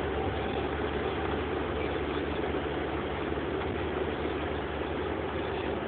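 Steady engine and road noise inside the cab of a Mercedes Sprinter tow truck cruising at motorway speed.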